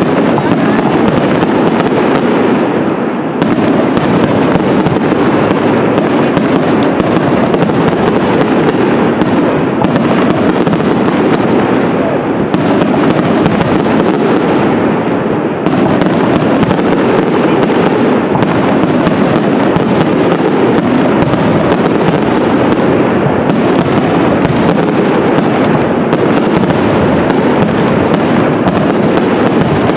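Professional aerial fireworks display: firework shells bursting in a dense, loud barrage of bangs in quick succession, with no letup.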